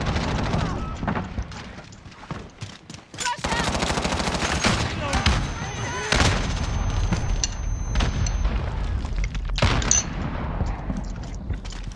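Video game gunfire: repeated bursts of automatic weapon fire in a first-person shooter, easing off briefly about two to three seconds in, then picking up again.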